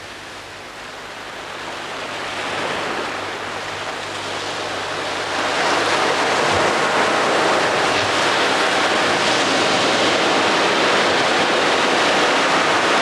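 Rushing sound of sea surf, building gradually and louder from about five seconds in.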